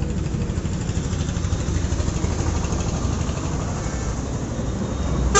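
Small motorcycle engine idling with a steady low rumble. Near the end there is one sharp click.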